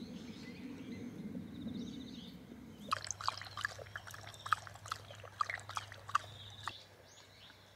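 A dog lapping water from a bowl: a run of quick wet laps at about three a second, starting about three seconds in and stopping shortly before the end.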